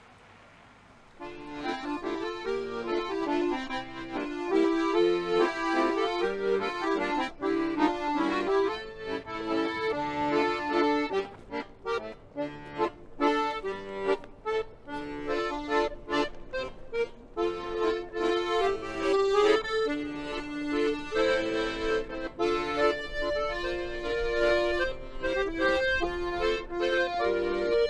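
Button accordion playing a tune, starting about a second in.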